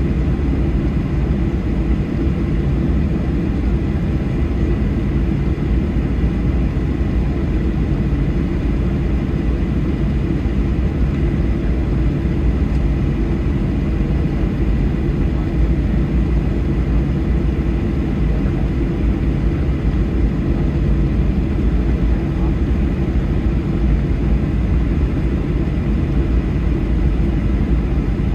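Boeing 737-800 cabin noise while taxiing, with its CFM56-7B engines at idle: a steady low rumble with a faint, thin high tone running through it.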